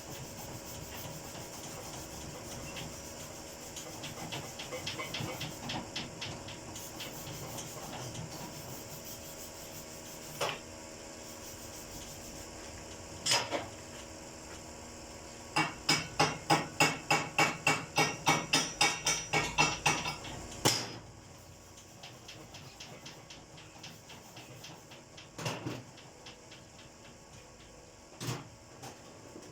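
A chipping hammer strikes steel to knock slag off an E7018 stick weld bead. There are a few single blows, then a quick run of about fifteen strikes at roughly three a second in the middle, and a few more single knocks near the end. A steady crackle runs underneath through the first half.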